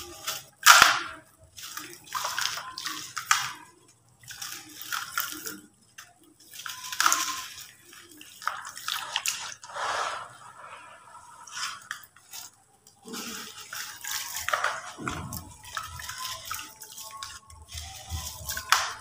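Lumps of gritty sand-cement crumbled and squeezed by hand, grit and pieces crunching and falling into a plastic bucket in irregular bursts about a second long with short pauses between.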